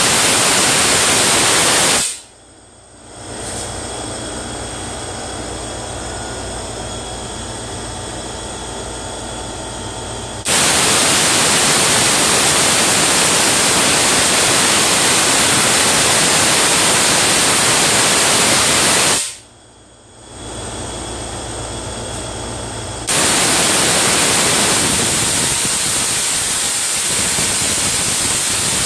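Spark-gap Tesla coil firing, its streamers making a loud, steady hissing crackle. It cuts out suddenly about two seconds in and again past the middle, and starts up again each time after a few seconds.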